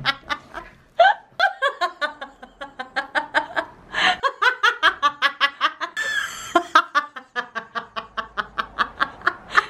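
A woman laughing hard and helplessly in rapid, repeated bursts of giggling, with short breaks between fits.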